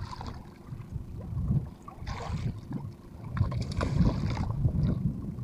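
A hooked skipjack tuna splashing at the surface beside a boat's hull as it is hauled in on a handline, in short splashes about two seconds in and again from about three and a half to four and a half seconds. Under it is a steady low rumble of wind on the microphone.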